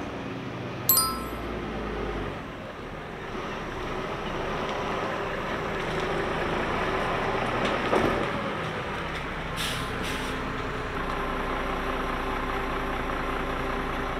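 Hyundai Aero Town bus engine running steadily as the bus pulls in and stops, with a short air-brake hiss about ten seconds in. A brief ding sounds about a second in.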